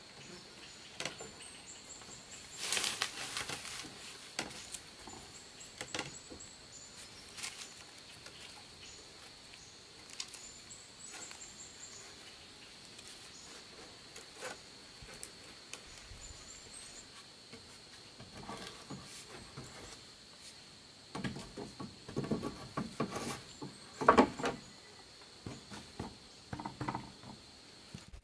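Light knocks, scrapes and rustles of bamboo poles being handled and lashed together with a bamboo-strip tie, coming in scattered bursts, with a busier run of sharper knocks near the end. A steady high-pitched whine and occasional bird chirps run behind.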